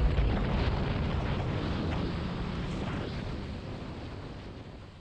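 Yamaha FZ8 motorcycle riding noise: the engine under way and wind rushing over the camera microphone, fading out steadily.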